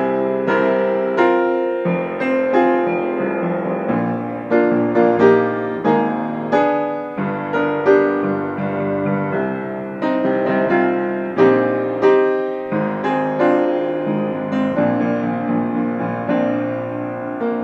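Background piano music: a gentle keyboard melody with chords, the notes struck and left to fade.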